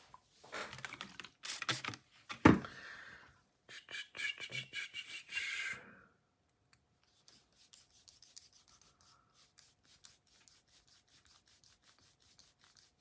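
Cloth rubbing and wiping a knife part clean in a run of short strokes, with one sharp knock about two and a half seconds in. After about six seconds the rubbing goes faint, a quick scratchy ticking.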